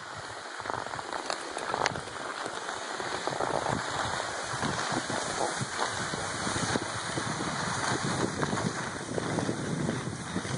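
Skis sliding and scraping over snow in a steady rough hiss with small crackles, with wind rushing over the microphone. It grows a little louder about a second in.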